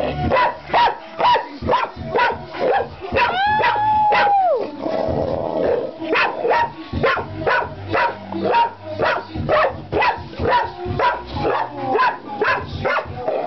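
Puppy barking over and over in short, sharp yaps, about two to three a second, with one longer drawn-out whining call about three and a half seconds in.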